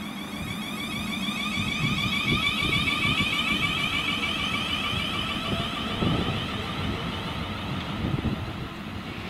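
A train running through the station, with a steady whine over a rumble and irregular knocks of the wheels on the track. The whine fades near the end.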